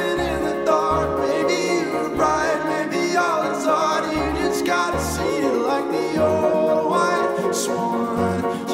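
Background song: a singing voice over instruments, with a recurring bass beat.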